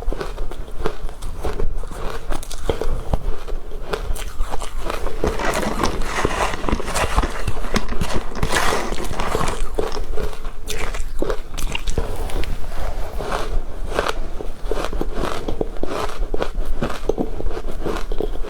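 Powdery frozen matcha ice being bitten and chewed, a steady run of crisp, crackly crunches.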